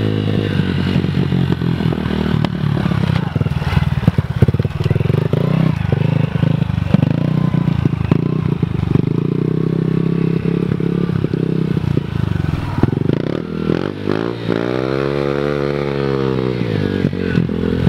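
Mini dirt bike engine running as it is ridden, its pitch shifting with the throttle; near the end it revs up and back down over about two seconds.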